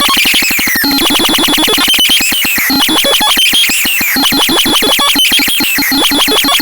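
Synthesizer making an electronic sound effect: a fast pulsing tone with repeated falling pitch sweeps over a steady high whine.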